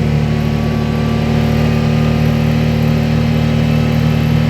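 Vehicle engine running steadily at an even speed while driving, a constant low drone with a faint thin whine above it.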